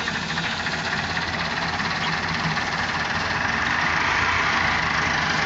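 Massey Ferguson 385 tractor's diesel engine running steadily, growing a little louder about three and a half seconds in.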